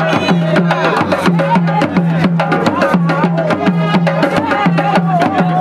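Group of rope-tuned hand drums played together in a quick, steady, driving rhythm, with voices singing or calling over the drumming.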